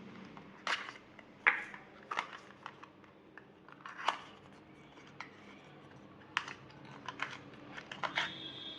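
Scattered clicks, taps and plastic rustles of hands handling unboxed accessories: a charging cable and its packaging. The sounds come irregularly, a few at a time.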